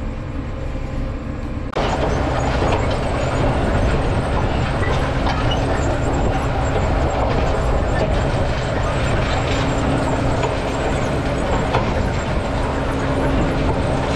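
Tractor running steadily under load while pulling a row-crop cultivator through soybeans at about 4 mph: a constant engine drone under a noisy rush with faint rattles. About two seconds in, the sound abruptly gets louder and fuller.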